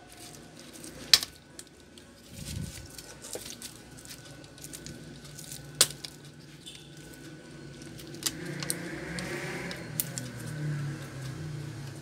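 Plastic screen bezel of a netbook display lid being pried off by hand, with a few sharp clicks as its clips snap loose and a soft rustle of plastic being handled near the end.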